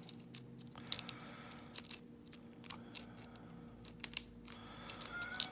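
A metal pick and tension tool working inside the keyway of a Scorpio dimple padlock: scattered small clicks and faint scrapes as the pins are probed and set.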